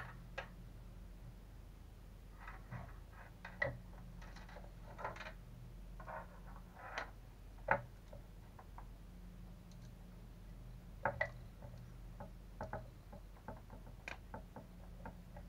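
Scattered small clicks, taps and brief rustles of hand tools and small RC truck parts being handled on a workbench, over a low steady hum.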